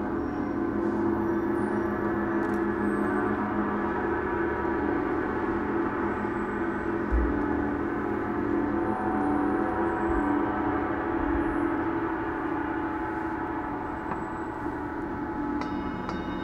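Large suspended gong played continuously, a dense steady wash of many overlapping ringing tones. Near the end, higher clear ringing tones are struck in over it.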